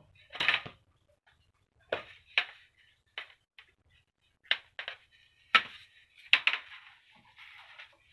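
A series of about ten sharp clicks and knocks of hard parts being handled, unevenly spaced, followed near the end by a rough scraping rustle.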